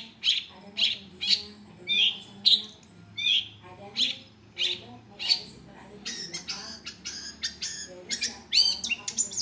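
Long-tailed shrike (cendet) calling: a string of sharp, harsh notes about two a second, some with a hooked downward twist, breaking into quicker chattering with downward-sweeping notes in the last few seconds.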